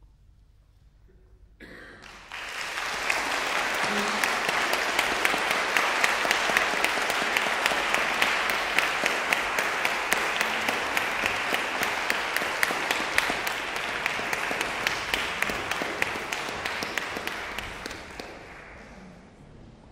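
Audience applause: a short hush, then clapping breaks out about two seconds in, holds steady and full, and dies away shortly before the end.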